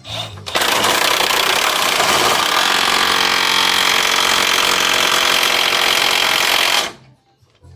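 Impact wrench running hard for about six seconds while driving a control-arm nut tight, then cutting off suddenly.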